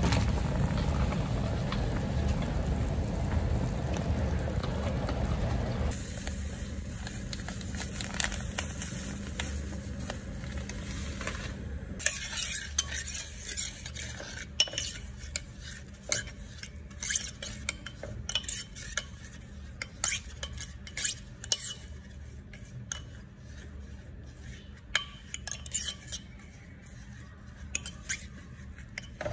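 A clay pot of broth bubbling at a boil for the first several seconds. Then a metal ladle stirs sugar in the clay pot, with many sharp clicks and scrapes of metal on the pot and a light sizzle as the sugar melts into caramel.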